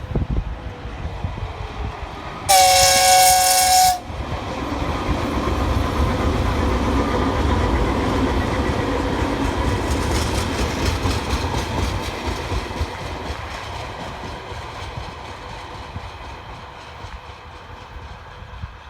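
VL80T electric locomotive sounds its horn once, a two-note blast of about a second and a half, then the locomotive and its repair train rumble past, the noise swelling and then slowly fading away.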